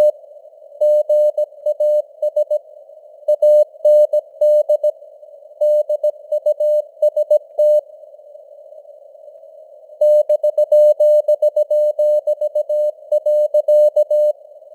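Morse code (CW) sent at 17 words per minute: a single steady mid-pitched tone keyed on and off in dots and dashes over a hiss of simulated radio band noise. The keying pauses for about two seconds in the middle and stops shortly before the end, leaving only the noise.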